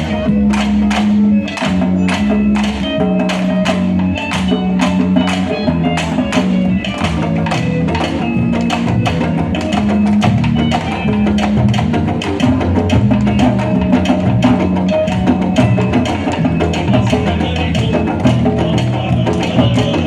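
Candombe drum ensemble playing, a steady sharp clicking beat about two to three times a second over the low booming of the drums.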